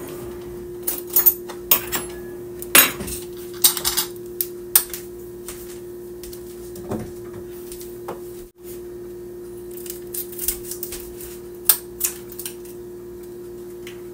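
Dishes and utensils clattering and clinking as kitchen items are handled on a counter, a cluster of sharp knocks in the first few seconds and more near the end, over a steady hum.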